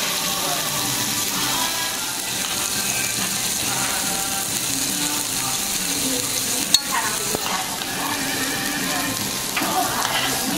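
Raw pork belly slices sizzling steadily on a hot grill plate, the fat spitting as it fries. One sharp click sounds about two-thirds of the way through.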